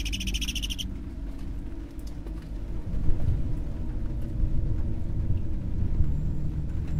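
Low rumbling drone of a horror film's sound design, swelling about three seconds in and settling into a steady low hum near the end. A brief high, rapidly pulsing chirp sounds in the first second.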